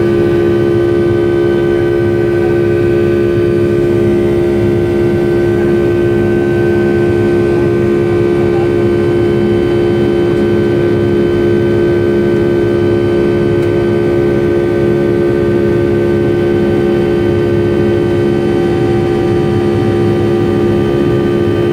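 Rolls-Royce RB211 turbofan on a Boeing 757-200 at climb power, heard from inside the cabin: a steady, loud jet drone with several steady whining tones over a rush of air.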